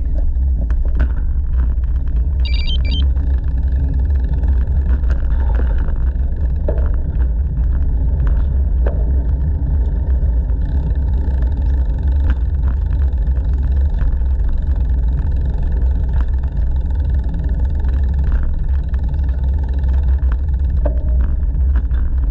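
Steady low rumble of wind buffeting a GoPro action camera's microphone while riding a bicycle, with tyre noise on the paved path. A brief high chirp sounds about two and a half seconds in.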